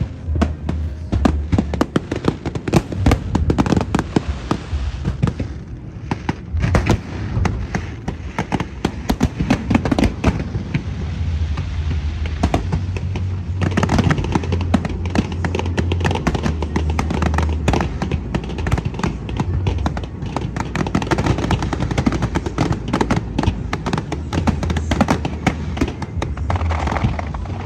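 Fireworks display: shells bursting in rapid, dense bangs and crackles, many per second, with show music playing underneath.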